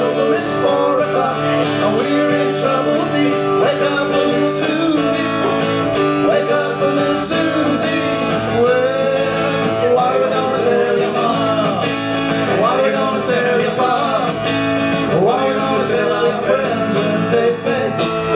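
Live acoustic guitar and a man singing into a microphone through a small PA.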